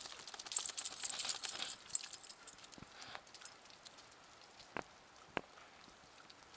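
Metal collar tags and leash clips jingling with some rustling for about two seconds as the dogs move about, then only a few sharp clicks, two of them about half a second apart near the end.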